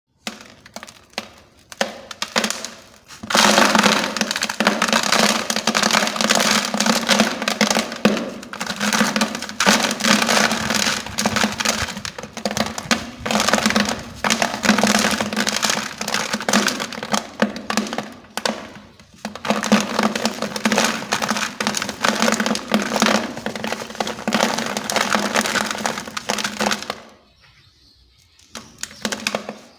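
Dry sand-cement blocks being crushed and crumbled, a dense gritty crunching and crackling. A few separate cracks come first, the continuous crumbling starts about three seconds in and stops shortly before the end.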